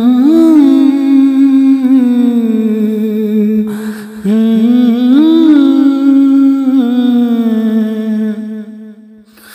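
A male naat singer sings wordlessly and unaccompanied between verses. There are two long held phrases, each bending up and down in pitch, and the second fades away near the end.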